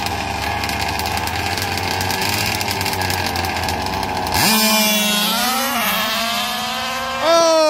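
1/5-scale gas RC dragsters' small two-stroke engines idling at the start line. About four seconds in they launch at full throttle, the engine note jumping sharply up in pitch and climbing as they run down the strip. Near the end the engines get louder again at a high pitch.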